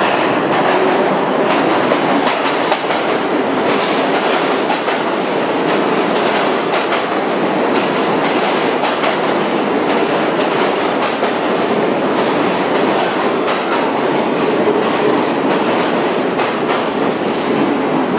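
R46 subway train rolling into the station: a steady loud rumble with the wheels clicking irregularly over rail joints.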